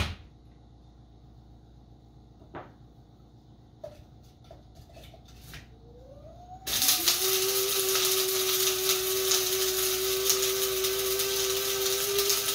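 Electric blade coffee grinder grinding dried bone-broth pieces into bouillon powder. A few small clicks come first, then a little over halfway through the motor starts, spins up quickly and runs at a steady pitch.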